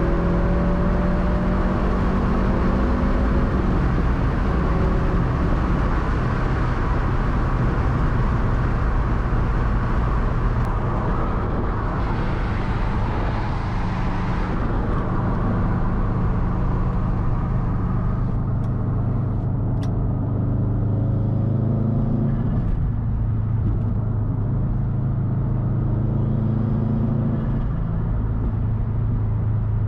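A 2013 Subaru WRX STI's turbocharged flat-four engine running through a Tomei Expreme Ti titanium turbo-back exhaust while driving. The engine note slides down a little at the start, then settles into a steady low drone.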